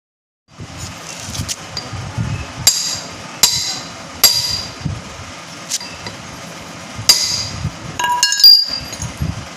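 Metal parts clinking and being tapped: half a dozen sharp, ringing strikes roughly a second apart, then a brief jangle of ringing metal near the end, over a low background rumble.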